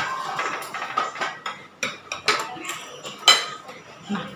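Metal spoon and fork clinking and scraping against a dish as food is served: a series of sharp clinks, the loudest about three seconds in.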